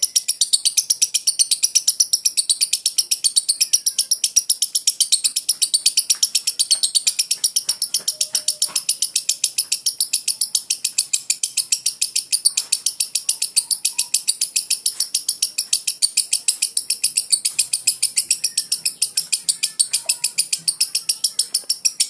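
Lovebird ngekek: a long, unbroken run of rapid, even, high-pitched chattering, the continuous 'konslet' style that the bird keeps up without pausing.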